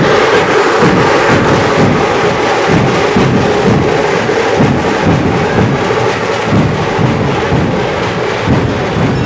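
Loud amplified music with a heavy drum beat, about two thumps a second, blaring from a truck-mounted stack of loudspeakers.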